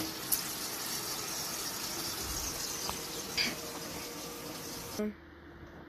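Kitchen tap running into a stainless steel sink as fish is rinsed under it, with a couple of light clinks. The water sound cuts off abruptly about five seconds in.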